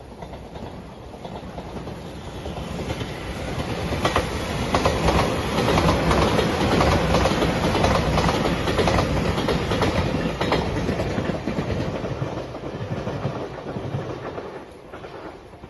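JR Shikoku limited express Shiokaze electric train passing close by. Its rumble builds, and at its loudest the wheels clack over rail joints several times before it fades away.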